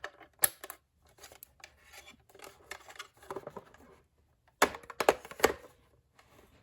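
Handling of cords and plastic while a telephone line cord is plugged into a cordless phone base: soft rustling with sharp plastic clicks, one about half a second in and a quick cluster about five seconds in.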